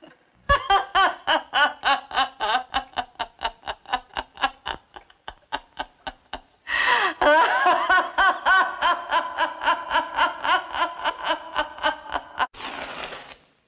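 A person laughing hysterically: a long run of rapid "ha-ha" pulses, about five a second. The laughter breaks off a little past the middle, starts again louder and higher, and ends on a breathy gasp.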